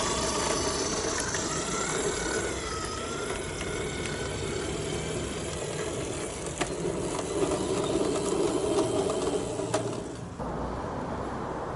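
Electric 16mm-scale garden railway railcar running on its track: the mechanical running noise of its gearhead motor and bevel-gear drive and wheels on the rails, with a few sharp clicks. About ten seconds in it gives way suddenly to a quieter outdoor background.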